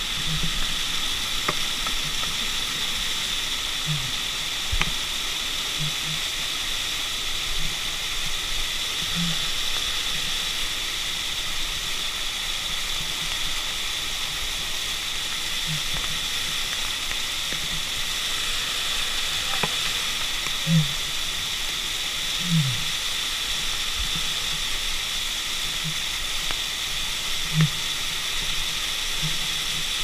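Waterfall rushing beside the rappeller, a steady hiss of falling water, with a few brief low sounds now and then.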